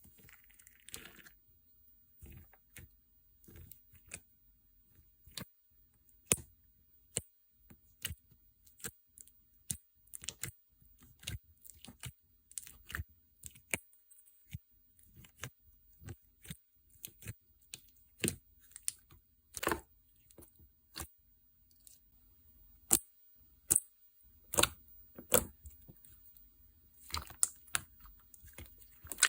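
Hands pressing and stretching slime, giving irregular sharp clicks and pops, a few every second, some much louder than others.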